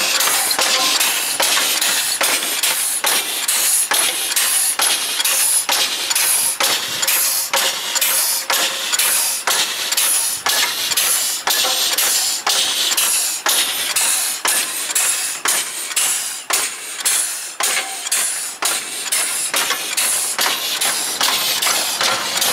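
Home-made twin-cylinder compressed-air locomotive running along its track, its spool valves exhausting air in a steady rhythm of loud hissing puffs, about three a second.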